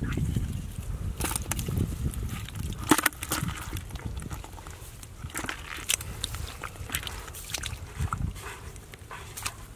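Hands working through wet mud and shallow water among grass, with irregular squelches, splashes and small sharp clicks, busiest in the first few seconds.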